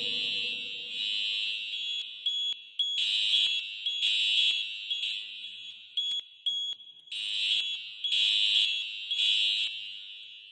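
Building fire alarm horns sounding the evacuation signal: high-pitched tones in the temporal-three pattern, three short blasts and then a pause, repeated.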